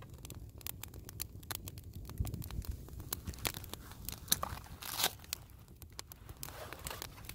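Campfire crackling with sharp clicks, then nylon pack fabric rustling and crinkling as a stuff sack is worked out of a pouch, with a short tearing rasp about five seconds in.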